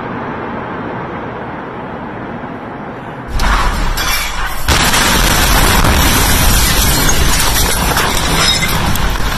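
The blast wave of the Beirut port ammonium-nitrate explosion reaching the recording phone about three seconds in: a sudden, very loud boom that overloads the microphone. Loud noise carries on after it, with a second surge about a second later.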